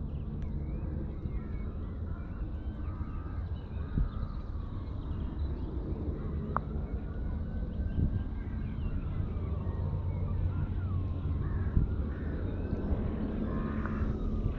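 Birds calling with drawn-out gliding cries over a steady low rumble, with a few short clicks.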